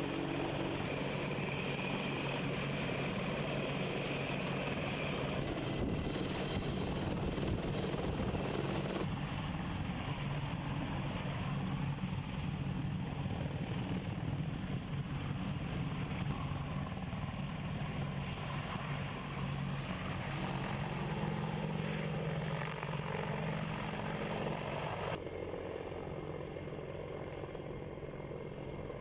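AH-64 Apache attack helicopters running, with the steady tone of their twin turboshaft engines under the noise of the main rotor. The sound changes abruptly twice, about 9 and 25 seconds in.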